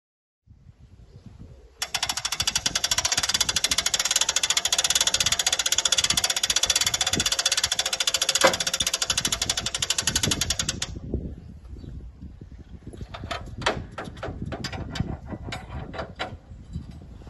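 Rapid, even ratcheting rattle of a hand-cranked mechanism at the front of a motorcycle trailer. It starts abruptly about two seconds in, runs for roughly nine seconds and stops abruptly. Scattered metal clicks and clanks follow as fittings are handled.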